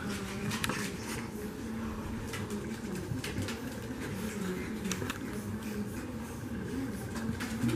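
French Bulldog puppies moving about on a blanket and mouthing and licking at a man's face: faint rustling, soft mouth noises and scattered small clicks.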